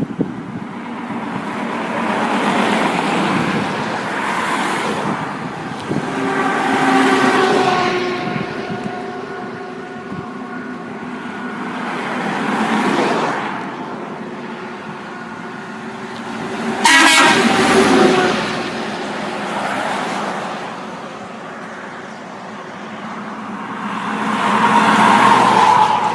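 Truck horn blowing several times over the noise of passing traffic that swells and fades. The loudest blast starts suddenly about seventeen seconds in, and another sounds near the end.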